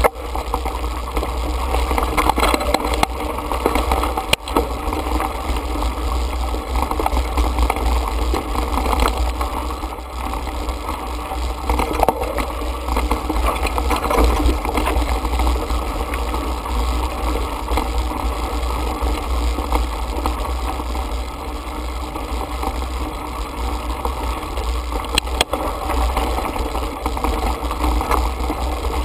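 Mountain bike ridden over a rocky dirt singletrack: tyres rolling over gravel and the bike rattling, with wind buffeting the handlebar-mounted camera's microphone. Two sharp knocks from bumps, one about four seconds in and one near the end.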